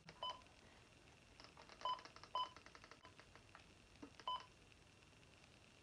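NOAA weather radio giving short key-press beeps as its buttons are pressed while it is being set: four separate beeps, with faint button clicks between them.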